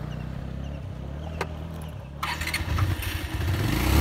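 Motorcycle engine running at low speed with a steady low note as the bike rolls over gravel. There is one sharp click partway through. About two seconds in, road and wind noise rise as the bike picks up speed.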